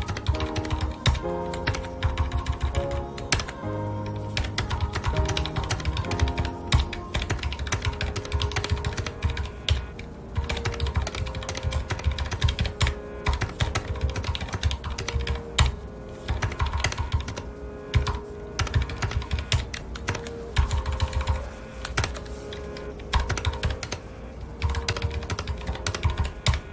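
Continuous typing on a mechanical keyboard with red (linear) switches, rapid keystroke clicks with brief pauses, over background music of held notes.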